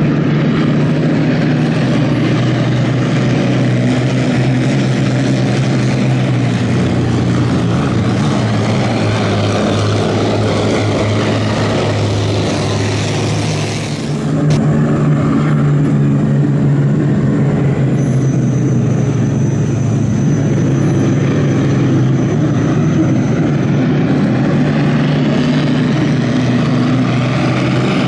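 Vintage hydroplane racing boats' Allison V-12 aircraft engines running flat out at racing speed: a loud, steady, low drone. It dips briefly and changes tone abruptly about halfway through.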